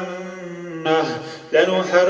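A man chanting Quranic verses in a slow, melodic recitation, holding long drawn-out notes at a steady pitch. He eases off briefly about a second in and starts a new held phrase just after the middle.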